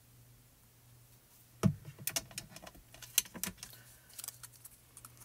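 A plastic glue bottle set down on the craft mat with a single sharp knock about one and a half seconds in, followed by a quick run of light clicks and taps as small card pieces are handled, with a few fainter taps near the end.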